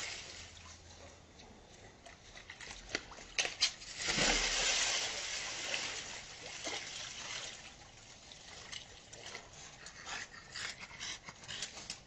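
Water splashing in a hot tub as a small dog thrashes in it and a man jumps in after it, with the loudest splash about four seconds in; a dog whimpers.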